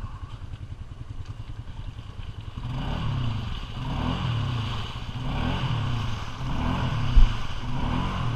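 Polaris ATV engine stuck in deep mud: after a couple of seconds of low steady running it is revved up and down about five times, each rev a second and a bit apart, as the rider tries to rock it out without it moving. A single sharp thump comes about seven seconds in.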